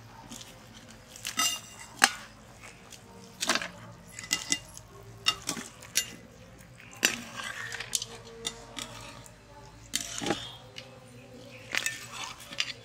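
Steel slotted skimmer clinking and scraping against stainless-steel pots as boiled chicken pieces are scooped out of the broth and dropped into a steel bowl: irregular sharp metal clinks, about a dozen.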